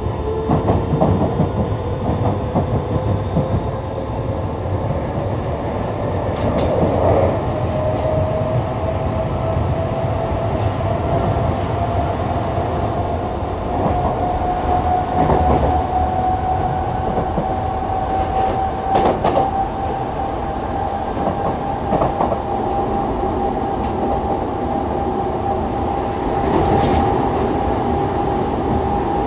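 Yokohama Municipal Subway 3000A train running, heard from inside the car: a Mitsubishi GTO-VVVF traction motor whine rising slowly in pitch as the train gathers speed, over a steady wheel-on-rail rumble with occasional clicks from the track.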